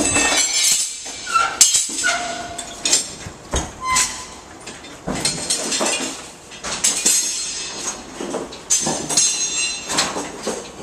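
Irregular metal clanks and bangs from demolition work, several of them ringing briefly.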